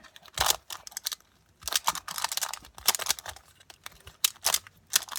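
Rubik's cube being handled and turned, its plastic pieces clicking and clacking in scattered bursts, thickest around the middle.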